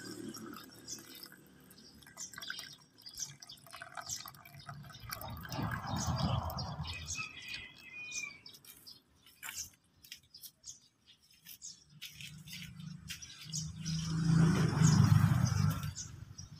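Water pouring into a glass stops right at the start, leaving quiet outdoor background with faint ticks and drips. A bird chirps briefly about halfway through. A low rumble swells and fades twice, the louder one near the end.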